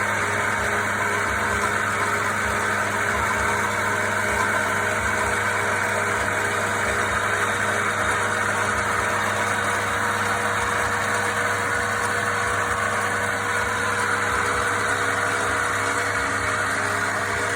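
Wood lathe running steadily, its motor giving a constant hum.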